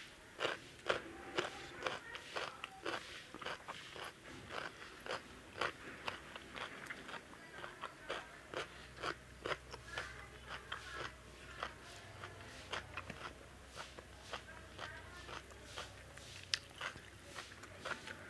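Close-miked eating: a person chewing mouthfuls of rice and kofta curry eaten by hand, with wet mouth clicks and some crunching, several irregular ticks a second.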